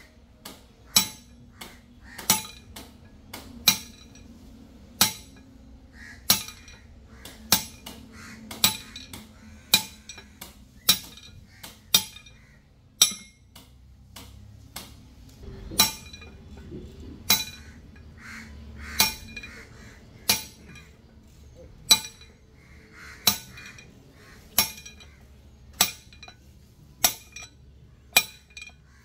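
Hammer striking metal in a steady rhythm, about one sharp ringing blow every second and a bit, as truck wheel parts are knocked on.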